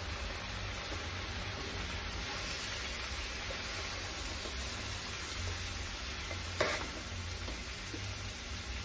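Sliced cabbage frying in undrained bacon and sausage fat in a large pan, a steady sizzle as a metal spoon stirs and turns it. One sharp knock about two-thirds of the way through.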